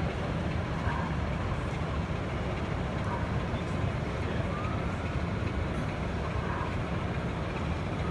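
Steady hubbub of a busy exhibition hall: a low, even rumble of many indistinct voices and general crowd noise.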